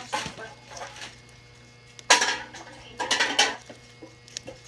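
A utensil scraping and knocking against a bowl while slime is stirred, in a few short bursts, the strongest about two and three seconds in.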